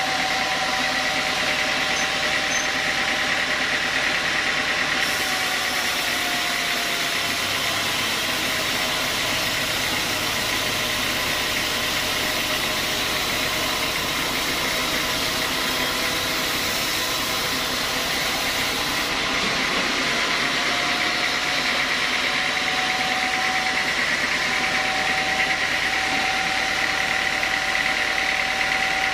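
Home-built sawmill saw running and ripping lengthwise through a large timber. Its steady whine drops a little in pitch under load from about five seconds in, with a hiss of cutting, and comes back up just before twenty seconds.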